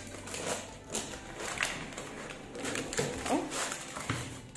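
A wooden (bamboo) board and a fluted metal cake tin lined with parchment being handled and turned over on a stone countertop: a series of light knocks and clatters, with rustling of parchment and cloth.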